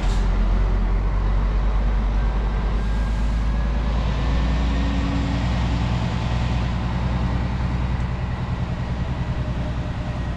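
Scania R-series truck's diesel engine running with a steady low drone, heard from inside the cab.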